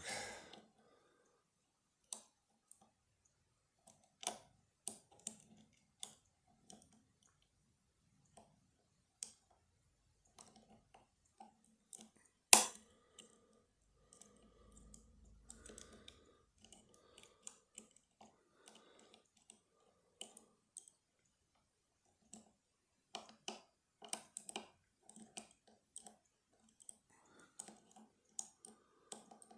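Small, irregular metal clicks and taps of lock-picking tools working inside a lever lock, with one sharp, much louder click about twelve seconds in.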